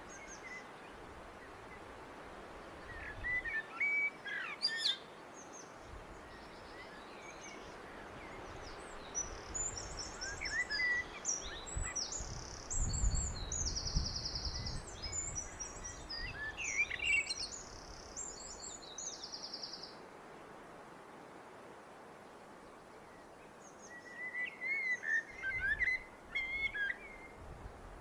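Blackbird singing in separate phrases: a warbled phrase about three seconds in and another near the end, with a long stretch of high, quick twittering notes in between. A low rumble sits under the song around the middle.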